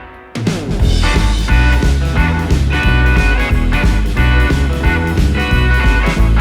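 Background music: a guitar-led rock track with a steady beat, which breaks off at the start and comes back in about a third of a second later.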